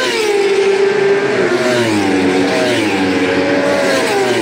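Superbike racing motorcycles' engines running on the circuit during qualifying, their notes falling in pitch several times.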